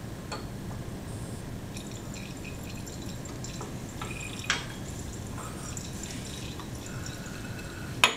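Small drips of liquid and light clinks of lab glassware at burettes and flasks. There is a sharper clink about four and a half seconds in and a louder knock near the end, over a low steady hum.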